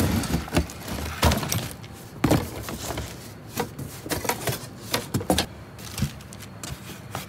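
Hands rummaging through a cardboard box of loose used car parts: irregular clattering and knocking of metal and plastic pieces against each other and the box, with a few louder knocks, the loudest about a second and two seconds in.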